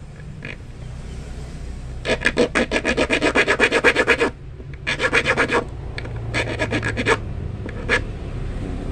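Small round file rasping on a steel fishing hook in quick back-and-forth strokes, about nine a second. There are three runs of strokes, the first about two seconds long and the others shorter, then a single stroke near the end. The strokes are shaping and sharpening the hook's point and barb.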